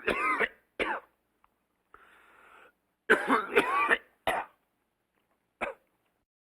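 A person coughing in two fits: several hacking coughs at the start, a quiet intake of breath, then a second run of coughs about three seconds in, and one last short cough near the end.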